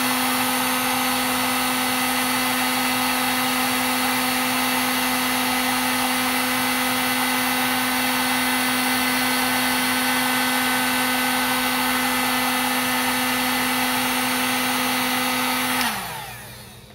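Heat gun running steadily, a constant motor hum over a rush of blown air. About 16 seconds in it is switched off, the hum sliding down in pitch as the fan winds down.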